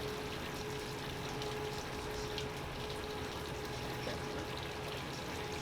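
Steady rush of water on a sport fishing boat, with a faint steady hum underneath that stops near the end.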